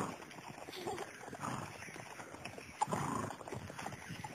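Horses' hooves clip-clopping at a walk, a stream of uneven hoof strikes, with one sharper knock about three seconds in.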